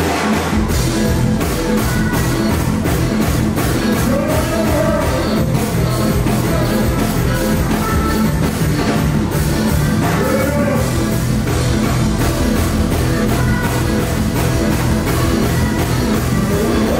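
Live Caribbean carnival band music over a stage sound system, loud and continuous with a steady, driving beat; a vocalist sings over it at times.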